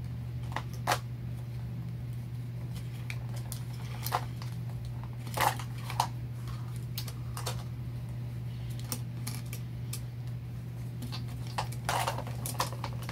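Scattered clicks and crinkles as Mini Brands plastic capsules and their foil wrappers are handled and pried open by hand, over a steady low hum.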